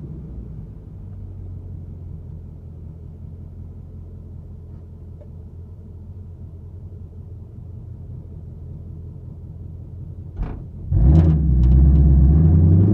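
A 2021 Ford Mustang GT's 5.0-litre V8 idling with a steady low exhaust rumble, heard from a microphone in the trunk. About ten seconds in there is a short sharp knock, and then the engine opens up loudly as the car accelerates away.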